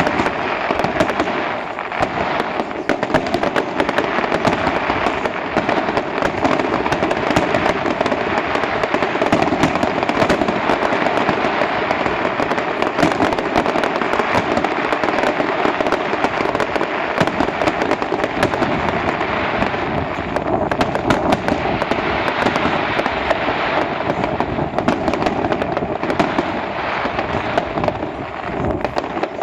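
Fireworks display: a dense, unbroken barrage of bangs, pops and crackle running on without a pause.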